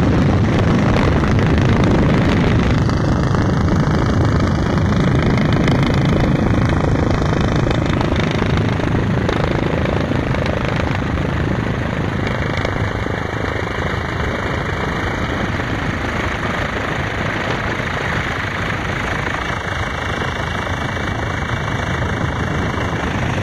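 Steady, loud engine and rotor noise heard from inside a helicopter cabin in flight.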